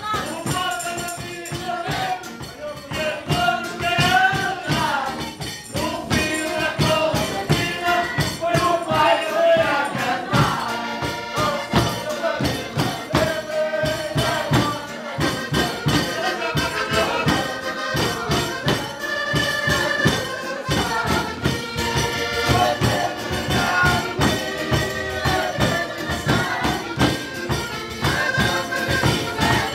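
Live band music: accordion and electric guitar playing an upbeat tune over a fast, steady rattling beat, with a voice singing the melody.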